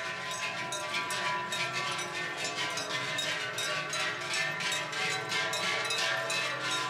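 Bells on a herd of goats clanking and ringing together as the goats walk, with irregular clinks several times a second over overlapping, lingering bell tones.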